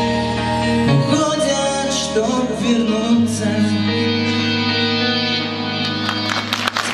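Live male vocals with a guitar backing track, closing out a pop song with held notes. Applause starts near the end.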